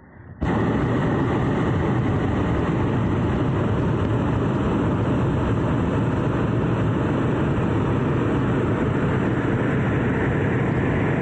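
Hot air balloon's propane burner firing in one long blast: a loud, steady roar that switches on suddenly about half a second in.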